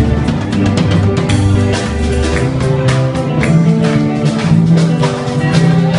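A live band playing a song with a steady beat on a drum kit under a moving bass line and guitar.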